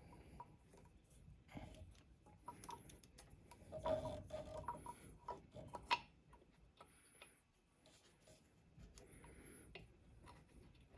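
Faint, scattered clicks and light knocks from motorcycle parts being handled as the front wheel and its ABS sensor are lined up for the axle, with a slightly louder cluster about four seconds in and a sharp click near six seconds.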